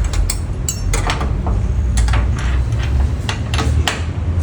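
Wrench or levelling tool working the washing machine's levelling bolts in its base: a string of irregular sharp metallic clicks and clinks, over a steady low rumble.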